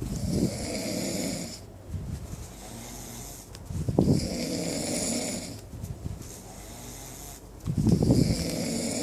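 Snoring: three loud snores about four seconds apart, each lasting about a second and a half, with quieter breathing between.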